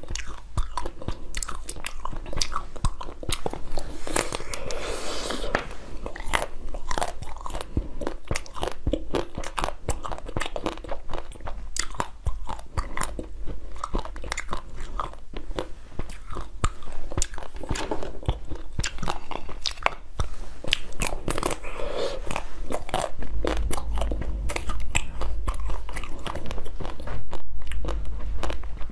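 A person biting and chewing frozen chocolate-coated dessert balls, with a dense run of crisp crunches and clicks as the frozen chocolate breaks.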